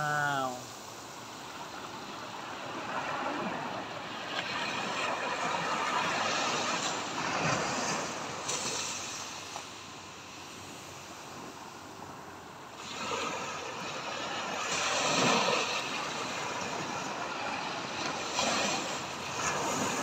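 Small sea waves washing up onto a sandy beach and drawing back, the surf swelling and fading in turn, loudest three times.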